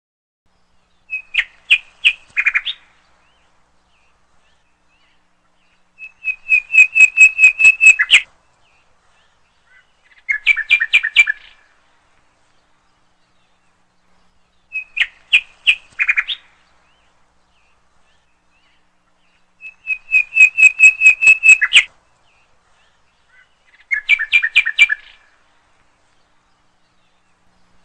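A songbird's song of rapid, sharp chirping phrases, each a fast run of repeated notes lasting one to two seconds, with silence between. The same three-phrase sequence is heard twice.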